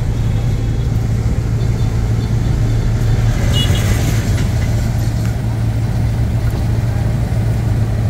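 Car cabin noise while driving in the rain: a steady low engine-and-road drone with the hiss of wet tyres and rain. A brief swish about halfway through, where the windshield wipers sweep the glass.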